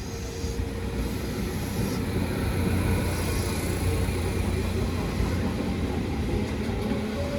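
Seibu Shinjuku Line electric train passing close by, a steady rumble of wheels on rails.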